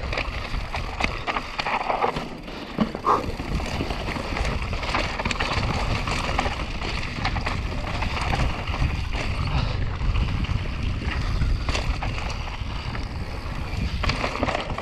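Wind rushing over the microphone as a mountain bike descends fast on a dry dirt trail, with the tyres rolling over dirt and loose stones and frequent short rattles and knocks from the bike.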